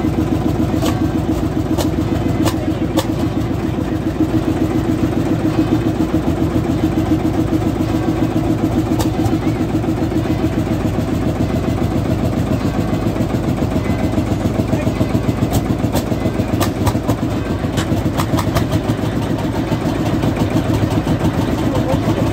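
Vintage single-cylinder hot-bulb tractor engine running with a steady, even chug, with a few sharp clicks and knocks over it.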